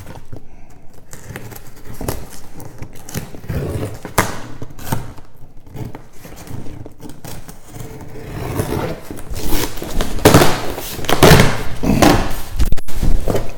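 Cardboard shipping box being torn open by hand: packing tape and cardboard ripping and scraping in uneven pulls, with knocks of handling, louder near the end.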